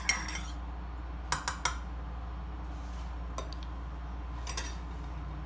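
Cutlery clinking against dishes in short, sharp taps: one at the start, three quick clinks about a second and a half in, and a softer few near the end, over a steady low hum.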